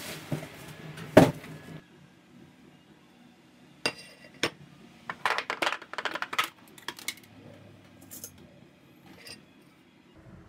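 Glassware and dishes handled on a kitchen counter: a sharp knock about a second in, then a run of short clinks and taps from about four to seven seconds in, with a few more later.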